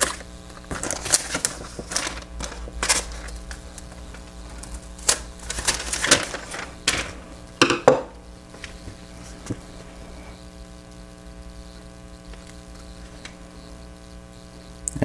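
Paper decal sheets being handled, slid and shuffled against one another and the tabletop: a run of short crisp rustles and light taps for about the first eight seconds, then only a low steady hum.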